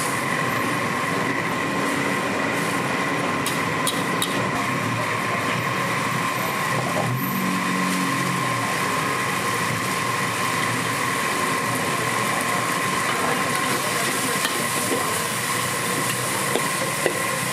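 Steady roar of a gas wok burner with a constant high whistle, as noodles are stir-fried in a steel wok. A metal ladle clicks against the wok now and then.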